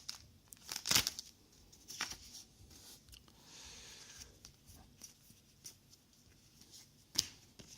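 Trading cards and foil booster-pack wrappers being handled: quiet rustling, with a few sharp taps or snaps of card, the clearest about a second in and near the end.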